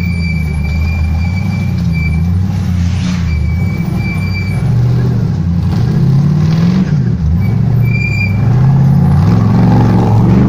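Off-road tube-frame buggy's engine revving up and down under load as it climbs out of a muddy gully. A steady high whine comes and goes over it, three times.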